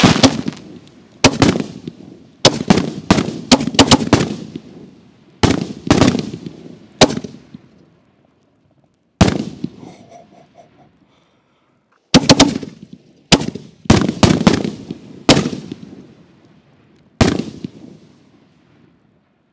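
Super Wave 4-inch canister shells firing and bursting overhead: loud, sharp bangs in quick clusters of several at a time, each trailing off in echo, with short lulls between clusters.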